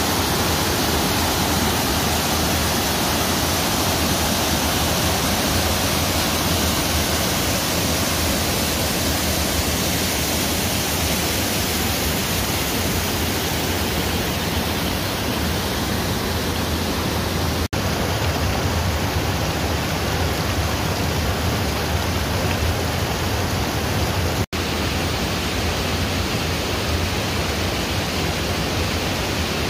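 Steady rushing of river water pouring over a low weir and rock cascade, breaking off for an instant twice.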